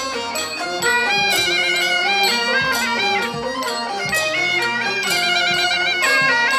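Background music: a high melody with warbling trills over a steady beat.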